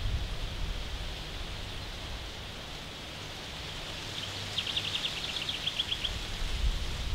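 Steady outdoor hiss of wind in the trees, with a low rumble of wind on the microphone. About four seconds in, a songbird gives a quick trill of about fifteen notes lasting about two seconds.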